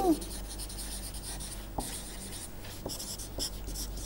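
Felt-tip marker writing on paper: faint, irregular scratchy strokes as words are written out by hand, over a low steady hum.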